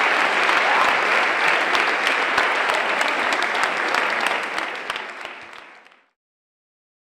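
A large audience applauding, dense rapid clapping that fades out to silence about six seconds in.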